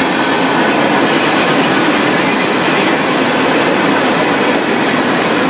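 Freight train rolling past, its cars running steadily on the rails, mixed with heavy rain falling.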